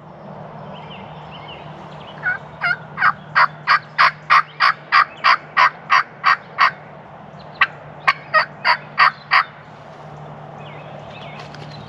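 Turkey yelping: a run of about fourteen evenly spaced yelps, about three a second, then after a short pause six more. A few faint small-bird chirps sound behind it.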